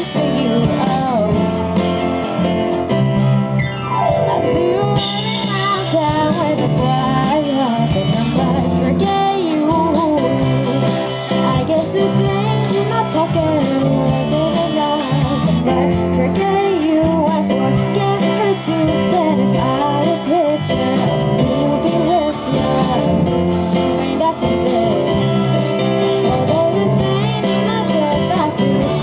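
Live rock band performance: a female lead vocal sung over electric guitars, drums and keyboard, continuous through the whole stretch.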